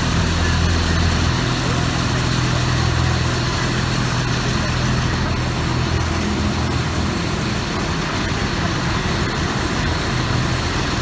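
A motor vehicle's engine running steadily under a dense, even rush of road and traffic noise.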